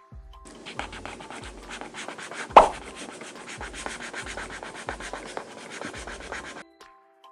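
Rapid, even back-and-forth strokes of a colouring tool scratching over paper as an area is filled in, stopping abruptly near the end. One sharp knock comes about two and a half seconds in, and a low repeating bass pulse runs underneath.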